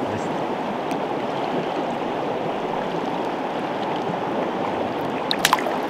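Shallow river water running steadily over rocks close to the microphone. A few brief clicks near the end.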